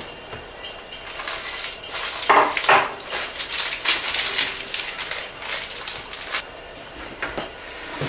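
Black spruce boughs being handled: needles rustling and small twigs snapping, with a few light knocks of a container against a tabletop.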